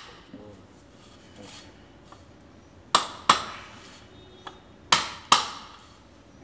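Rubber mallet knocking on a Suzuki TL1000R front fork's lower leg, tapping a new fork oil seal into place: four sharp knocks in two quick pairs, about three and five seconds in, each with a short ring.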